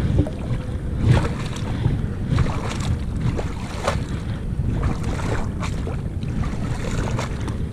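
Wind rumbling on the microphone over small waves lapping among shoreline rocks, with a few brief splashes.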